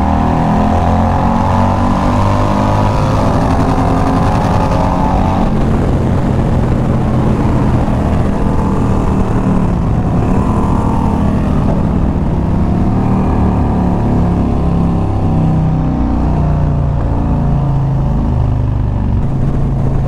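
Harley-Davidson V-twin motorcycle engine under way with wind rush. Its pitch climbs under acceleration for the first five seconds or so, drops, then rises and falls in steps with throttle changes and gear shifts.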